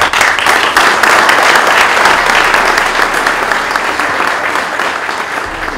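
Small seated audience applauding, a dense patter of hand claps that slowly eases off toward the end.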